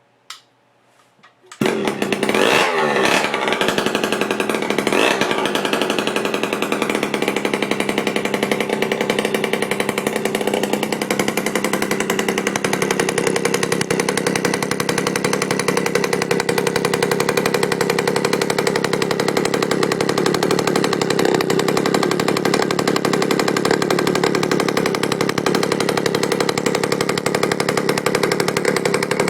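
Freshly rebuilt 1966 Harley-Davidson M50 50cc two-stroke engine on a test run: it starts about a second and a half in, revs up and down briefly, then runs steadily.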